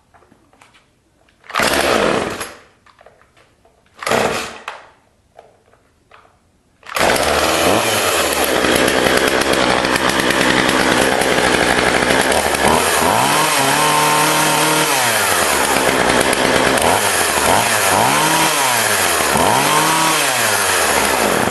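46cc Poulan Pro two-stroke chainsaw being pull-started: two short bursts as the cord is pulled, then it catches about seven seconds in and runs loudly. In the last several seconds it is revved up and down a few times.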